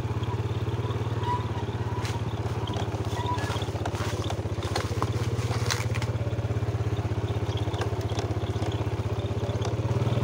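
Motorcycle engine running steadily while riding a rough dirt forest track, with scattered clicks and knocks over it.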